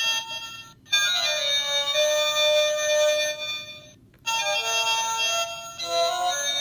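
Animated Halloween 'Beware' doorbell sign playing an electronic tune through its speaker, reedy like a harmonica or organ. It cuts out briefly about a second in and again about four seconds in.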